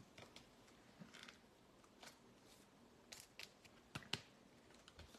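Faint handling of trading cards and their packaging: soft scattered rustles and light clicks, with a couple of sharper ticks about four seconds in.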